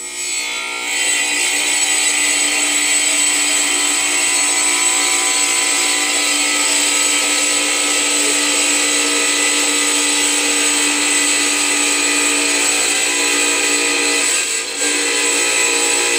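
Electric kitchen appliance motor running loud and steady, switching on at the start and reaching full speed within about a second, with a brief drop about fourteen and a half seconds in before it carries on.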